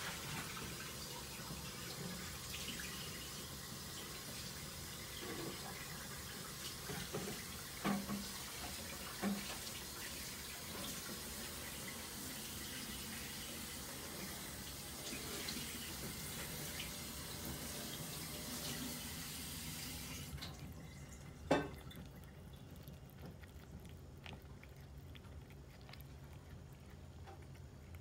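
Steady rushing hiss, like water running from a tap, that cuts off suddenly about twenty seconds in. Underneath are the small sounds of a cat eating from a ceramic bowl: a few light knocks, and one sharp click shortly after the hiss stops.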